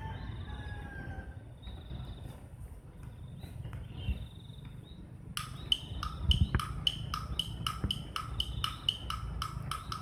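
A small bird calling a rapid, even series of sharp chip notes, about four a second, beginning about halfway through. Before it come faint high trills repeating every second or so, over a low rumble.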